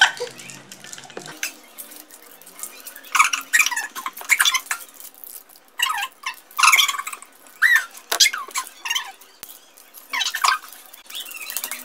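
Plastic candy wrappers crinkling and squeaking in irregular bursts as fingers and teeth pick and tear at them to unwrap pacifier-shaped candies.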